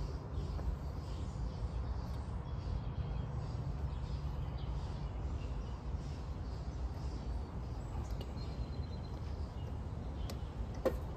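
Outdoor background with a steady low rumble and faint bird calls now and then; two sharp clicks sound near the end.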